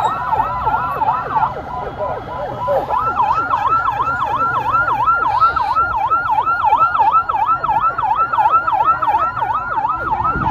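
Electronic siren in fast yelp mode on a vehicle with red and blue flashing lights: a rapid up-and-down wail about three times a second. The pattern breaks off briefly about two seconds in, then resumes. A steady rumble of engine and road noise sits underneath.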